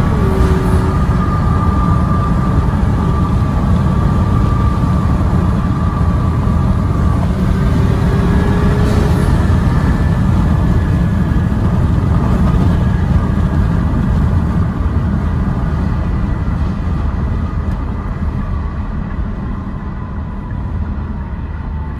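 Kia Stinger GT's twin-turbo V6 with Injen intakes cruising at highway speed, heard from inside the cabin as a steady loud rumble of engine and road noise. It eases off slightly near the end as the car slows.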